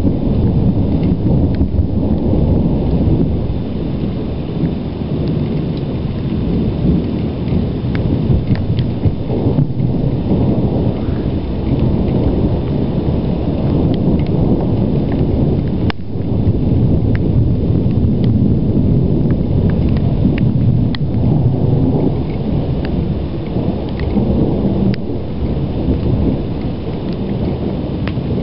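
Low, rumbling thunder rolling on without a break from a thunderstorm, with scattered light ticks over it.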